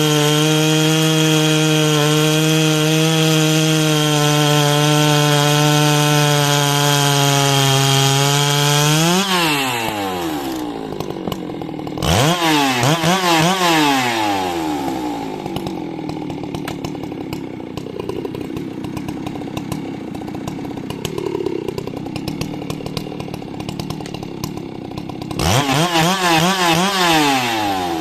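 A 90cc-class professional two-stroke chainsaw runs at full throttle through a cut for about nine seconds, its pitch sagging slightly under load. It then drops to idle. The throttle is blipped in two short bursts of revs, one around halfway and one near the end, with idling in between.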